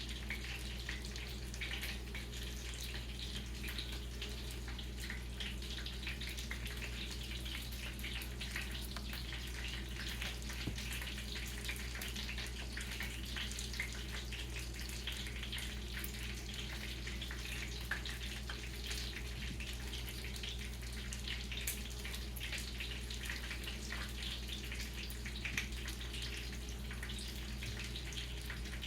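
Cornflake-breaded chicken wing drumettes frying in hot oil: a steady sizzle of dense small crackles and pops. A steady low hum runs underneath.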